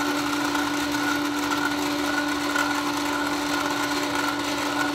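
Small electric motor of a toy spin-art painting wheel running steadily on its slow setting: a constant low hum with a fainter higher whine above it.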